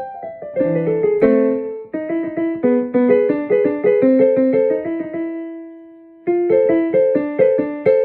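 Background piano music: a light melody of quick notes that stops on one held, fading note about five seconds in, then picks up again about a second later.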